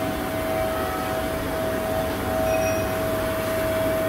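Side-channel vacuum pump for a CNC router's vacuum table running: a steady whine over an even rush of air, holding vacuum on the table.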